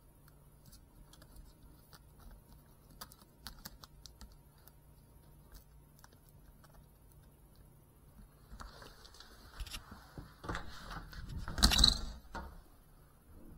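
Handling noise from a crashed FPV drone: scattered faint clicks, then about four seconds of scraping and clattering as the drone is moved along the floor, loudest just before it stops.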